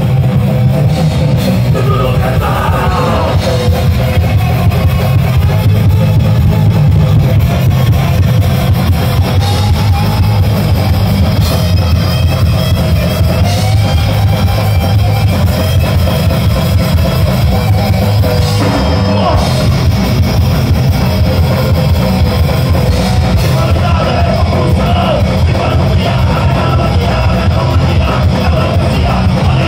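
Live rock band playing loud and without a break, with electric guitars and a drum kit.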